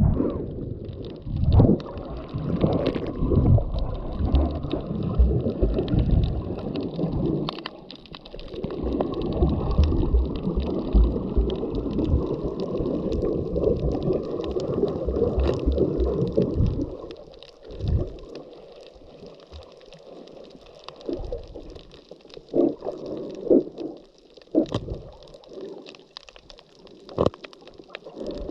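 Water heard by a camera underwater: a muffled gurgling rush of water and bubbles that drops away about two-thirds of the way through, leaving a quieter hiss with scattered sharp clicks and pops.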